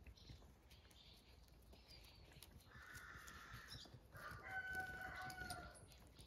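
A rooster crowing once about four and a half seconds in, a held call of a little over a second, after a fainter, rougher call about three seconds in.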